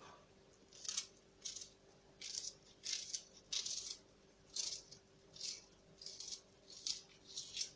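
A knife slicing through a raw onion, about ten short crisp cuts in a steady rhythm, less than a second apart.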